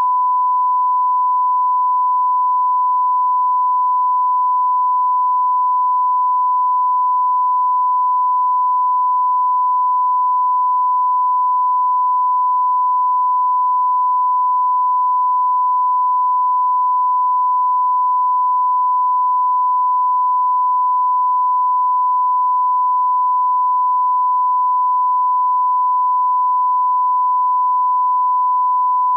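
A continuous 1 kHz reference tone: one pure, steady beep that never changes in pitch or loudness.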